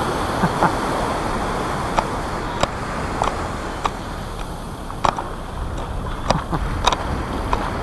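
Surf washing around the feet with a steady rush of water and wind, broken by about ten sharp, irregular clicks from a camera's waterproof housing that was not closed properly.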